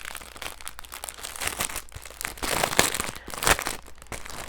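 Wrapping paper crinkling and rustling as it is handled and pulled open by hand, loudest about three seconds in.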